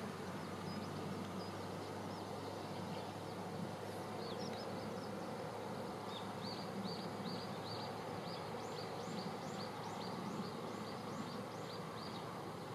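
A low, steady outdoor rumble. From about four seconds in, a bird repeats short, high chirps about twice a second until near the end.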